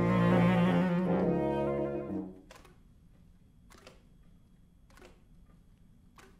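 Woodwind quintet of flute, oboe, clarinet, horn and bassoon playing several held notes together, stopping about two seconds in. Afterwards only faint short clicks remain, about one every second.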